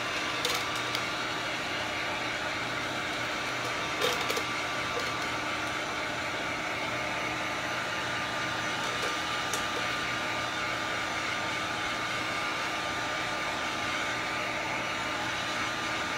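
Electric heat gun running steadily, a rush of hot air with a faint steady whine, as it shrinks a plastic shrink-wrap sleeve tight around a sublimation tumbler. A light knock comes about four seconds in.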